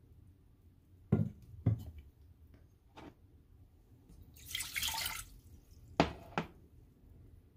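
Water being poured into a cooking pot, splashing for about a second near the middle, with several sharp knocks before and after it.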